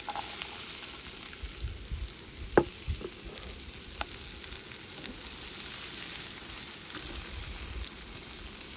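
Diced potatoes sizzling as they fry in hot oil in a small pan on a gas-canister camping stove, a steady hiss. A sharp knock comes about two and a half seconds in, with a few lighter ticks after it.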